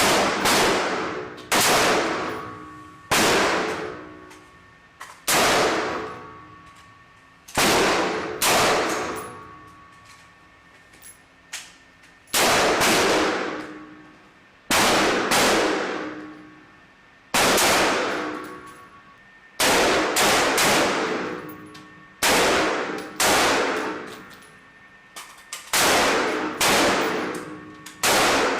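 Rifle shots fired singly on a range, about twenty of them, one every second or two with some in quick pairs, each ringing out with a long echoing decay.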